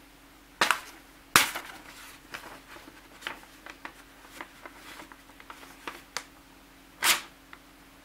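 Folding pocket knife's steel blade stabbing into a sheet of printer paper and slicing across it, in a paper-cutting test of a freshly re-sharpened blade. Two sharp cracks come about half a second and a second and a half in, the second the loudest, then a run of small crackling ticks as the blade cuts through, and one more loud crack about seven seconds in.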